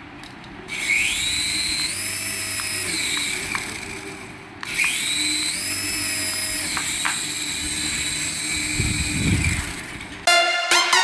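Battery-powered toy whining: a high-pitched whine rises, holds, climbs a little higher, then falls away, and the same pattern plays twice.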